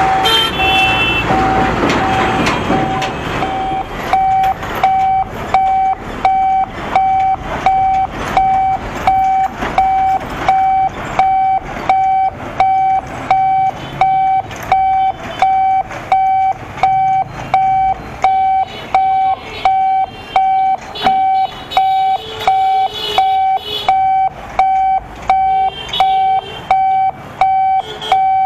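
Railway level crossing warning hooter beeping in one high tone, about three beeps every two seconds, as the barriers close. Truck engines run under it for the first few seconds.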